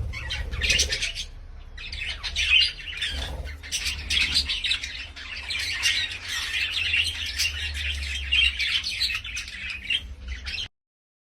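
Parrot squawking and chattering in rapid, harsh calls over a low steady rumble, cutting off abruptly near the end.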